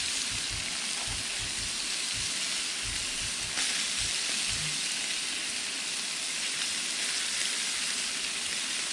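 Walleye fillets frying in butter on a Blackstone flat-top griddle: a steady sizzling hiss.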